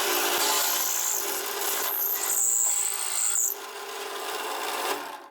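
Drill press driving a hole saw through wood: a steady motor hum under the rasping of the cut, with a high whine over it. It eases off about three and a half seconds in and cuts off abruptly at the end.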